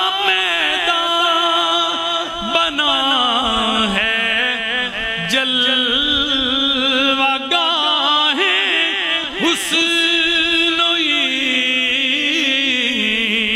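A man sings an Urdu devotional manqabat in praise of the Ahl-e-Bayt into a microphone. He draws the words out into long held notes that waver and glide in pitch, in a chant-like melismatic style.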